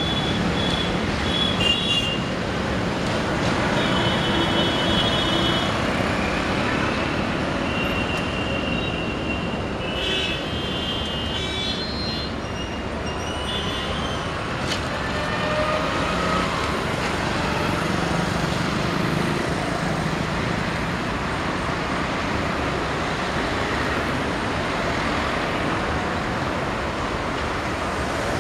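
Road traffic at a busy intersection: cars and motorcycles passing and turning, with a steady hum of engines and tyres. Several short vehicle horn honks sound in the first half.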